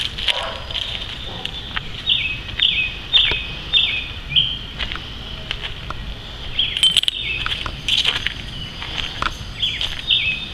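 A bird calling in short runs of three to five high notes about half a second apart, each note dropping in pitch, with footsteps crunching on dry leaf mulch.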